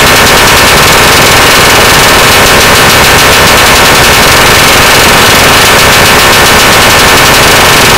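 Harsh noise music: an unbroken wall of heavily distorted noise filling every pitch at once, riddled with rapid crackling, very loud and unchanging.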